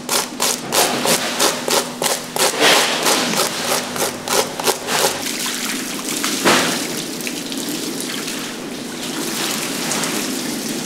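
Plastic fish scaler raking the scales off a large grouper in quick rasping strokes, about three a second. About six seconds in, water poured from a jug rushes and splashes over the fish onto a steel table.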